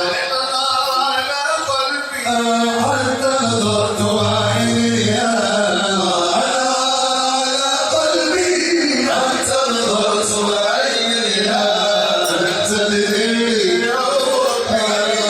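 A vocal group singing an Arabic madih, a devotional chant praising the Prophet Muhammad, with long held notes that waver in pitch.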